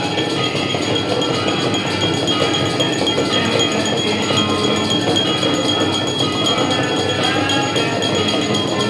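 Temple aarti music: bells ringing rapidly and without pause, with other instruments mixed into a dense, steady din.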